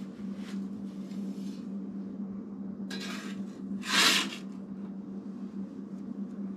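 A steel ash tool scraping ash across the metal floor of a wood stove's firebox in a few short strokes, the loudest about four seconds in, over a steady low hum.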